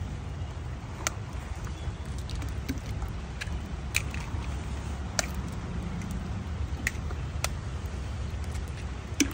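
Hen's eggs cracked open one after another over a hollowed pumpkin, each a short sharp crack, over the low steady rumble of a wood fire burning beneath it.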